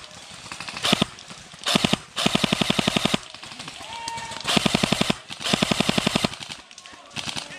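Airsoft rifle firing on full auto in rapid bursts, about six of them, the longest lasting about a second.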